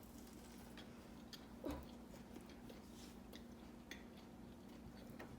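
Faint chewing of a bite of turkey sandwich: quiet, scattered mouth clicks with a brief murmur about two seconds in, over a low steady hum.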